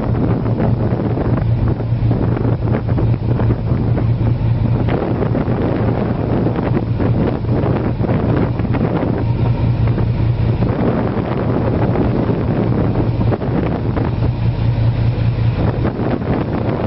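Wind buffeting the microphone on a moving ship's deck, over a steady low engine hum and water rushing along the hull.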